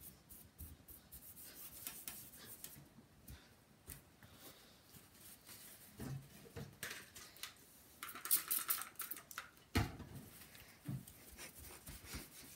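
A paper towel damp with rubbing alcohol wiping across the plastic bezel and glass of a CRT monitor, giving faint, scattered rubbing and rustling. There is a louder stretch of rustling about eight seconds in and a single knock near ten seconds.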